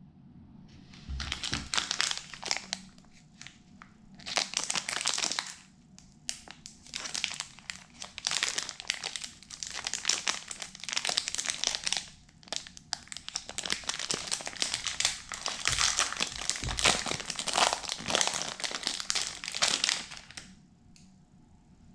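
Plastic candy-bar wrapper crinkling in repeated bouts as it is handled, turned over and opened, with short pauses between handlings; it stops a second or so before the end.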